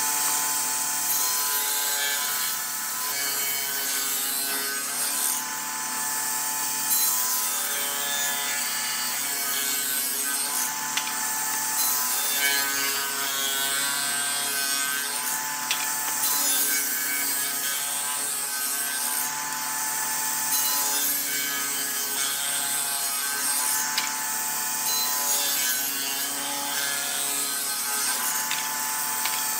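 Wood lathe running with a turning tool scraping and cutting into the spinning wood: a continuous rasping sound over the lathe's steady tones, which waver slightly as the cut changes.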